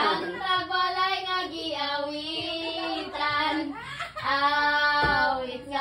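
High voices singing a song with long held notes, pausing briefly between phrases.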